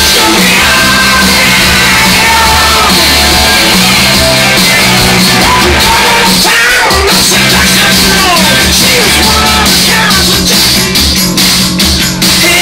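Loud music with a singing voice over a steady, pulsing bass line, playing continuously as the children dance.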